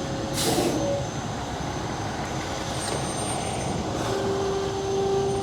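Front-discharge ready-mix concrete truck's diesel engine running steadily, with a brief hiss about half a second in.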